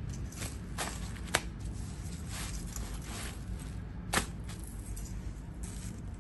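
A leather long wallet being handled over tissue paper: soft paper and leather rustles, with two sharp clicks, about a second and a half in and again about four seconds in.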